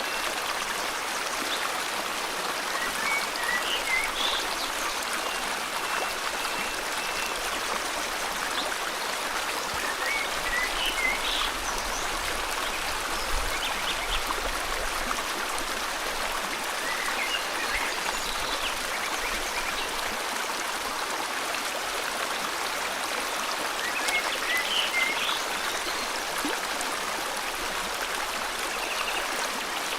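Steady rushing flow of a forest river or stream, with short bursts of bird chirps every several seconds.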